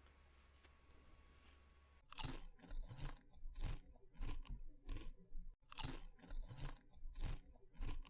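Crunchy chewing of food, close to the microphone. It is faint for the first two seconds, then turns loud and crisp, with chews coming about twice a second.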